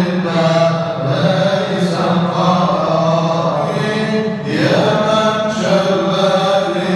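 A man chanting a slow Sufi devotional hymn into a handheld microphone, his amplified voice holding long sung notes, with one note sweeping upward about four and a half seconds in.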